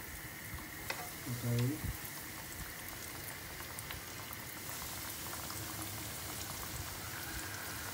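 Flour-coated chicken wing pieces deep-frying in hot oil in a wok: a steady sizzle with scattered crackles and pops.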